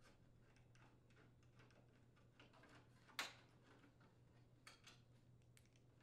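Near silence with a few faint clicks as a Phillips screwdriver unthreads the screws of the range door's side glass bracket; one sharper click about three seconds in.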